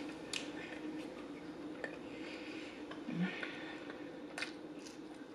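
Soft eating sounds as a garlic parmesan fry is picked up and eaten: small wet mouth clicks and chewing. There is a short hummed "mm" about three seconds in.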